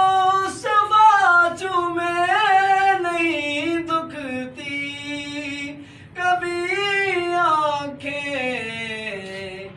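A man singing a naat unaccompanied, drawing out the words in long, ornamented held notes that rise and fall, with short breaths between phrases.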